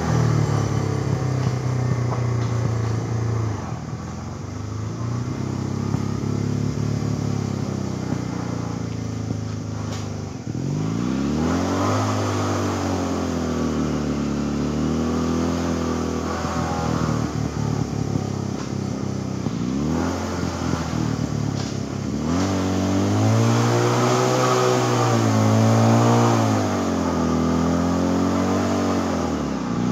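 Homemade 250cc ATV's engine running as it is driven, revving up and falling back several times, with long rises and drops in pitch around halfway through and again near the end.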